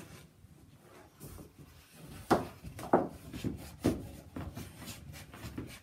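Feet thumping on a hard floor in a run of skipping hops, about two a second, starting about two seconds in.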